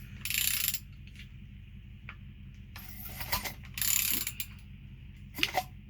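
Ratchet wrench clicking in about five short bursts as it turns the crankshaft of a 3.0 L Mazda V6 by the harmonic balancer bolt; with the spark plugs out the engine turns over easily.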